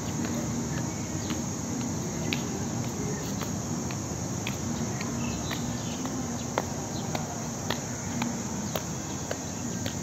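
Steady, high-pitched insect chorus that holds without a break, over a low background rumble with scattered faint clicks.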